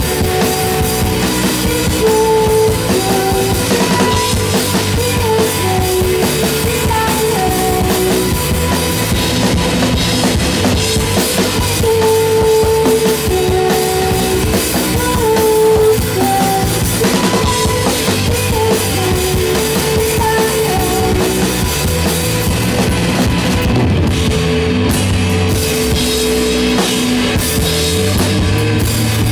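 Live indie rock band playing a song on drum kit, electric guitar and bass guitar, with a melody line of held notes. The drums drop back near the end.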